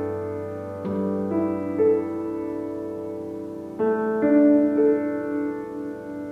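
Background piano music: slow, sustained chords changing every second or so.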